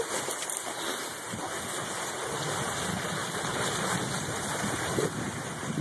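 Skis gliding over snow while being towed along, a steady rushing hiss.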